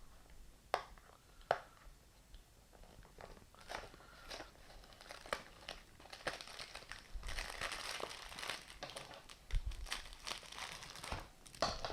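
Biscuit packet being handled and torn open: a few sharp crackles at first, then several seconds of steady crinkling of the wrapper.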